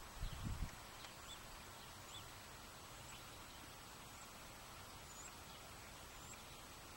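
Quiet outdoor background hiss with scattered short, faint, high bird chirps. A few low thumps in the first second.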